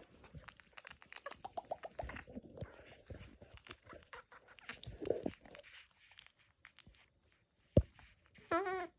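A run of quick clicks and crackles, then a sharp knock, and near the end a short, wavering, high-pitched cry from a baby monkey.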